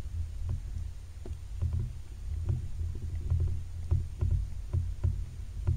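Moving water heard from underwater: a muffled low rumble and gurgle, with many small clicks and pops.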